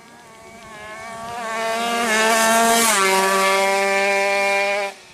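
Kawasaki Ninja two-stroke drag bike at full throttle on a drag run. It grows louder as it comes on, its pitch steps down about three seconds in, and the sound cuts off suddenly near the end.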